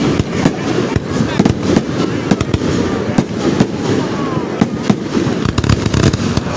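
Fireworks finale: a dense, continuous barrage of shells bursting in rapid succession, with booms and crackling overlapping without pause.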